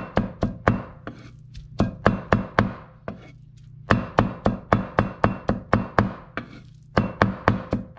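Cleaver chopping young tamarind leaves on a round wooden cutting board: quick runs of sharp knocks, about four a second, breaking off briefly about three seconds in and again near the end.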